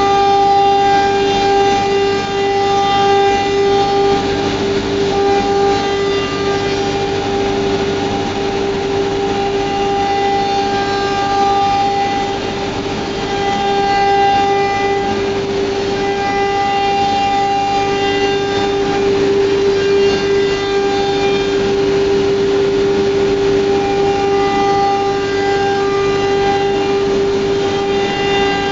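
ATC CNC router running: the spindle gives a steady, loud, high whine, with rougher machining noise over it and upper tones that come and go every few seconds.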